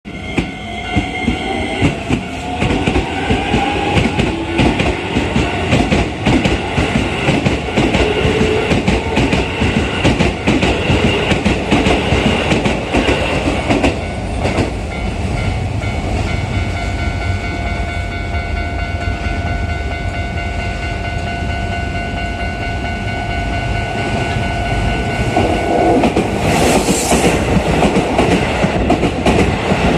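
Keisei 3000-series electric commuter trains: one pulls away with a slowly rising motor whine over the first few seconds, and wheels clatter over the rail joints as the trains run past. Steady repeating warning tones ring through it, typical of a level-crossing alarm, with a brief hiss near the end.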